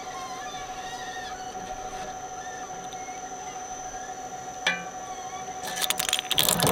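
Twin-shaft shredder running with a steady hum. A single sharp click comes about four and a half seconds in. From about six seconds a rapid clatter of cracking and crunching follows as small toy cars are chewed by the cutters, loudest near the end.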